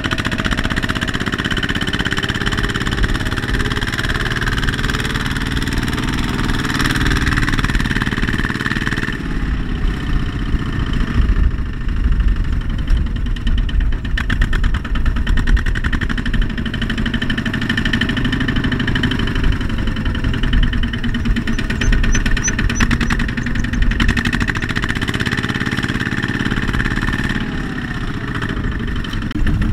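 Kubota walking tractor's single-cylinder diesel engine running under heavy load as it drags a loaded trailer through deep mud, its pitch slowly rising and falling.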